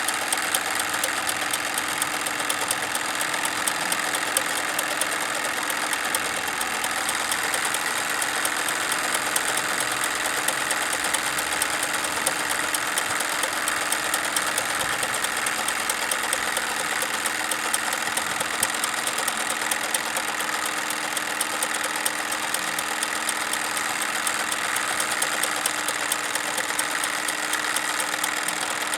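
Wilesco D22 toy steam engine running steadily with the toy sawmill it drives: a fast, even patter of exhaust beats and ticking over a steady mechanical hum.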